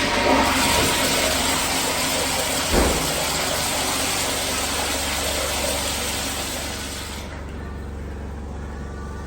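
Kohler commercial toilet flushing: a steady rush of water that cuts off abruptly about seven seconds in, leaving a low hum. A brief low thump about three seconds in.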